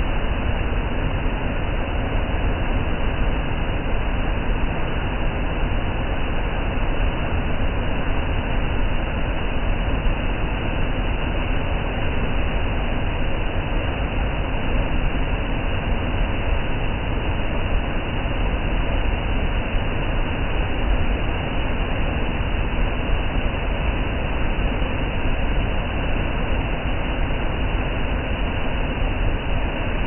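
Waterfall cascades pouring over rock ledges: a loud, steady rush of water with no let-up.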